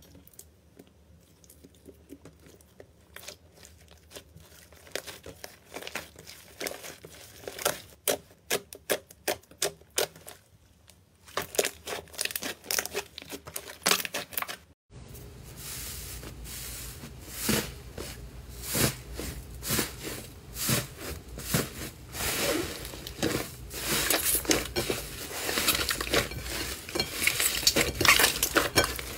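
Hands squeezing and kneading slime: sticky squelches and many small clicking pops as trapped air bursts, sparse at first and getting denser and louder. About halfway through a faint low hum comes in under the pops.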